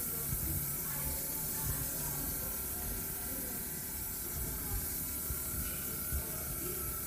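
Oxygen spray airbrush hissing steadily as the compressor-driven wand mists oxygen serum onto the face.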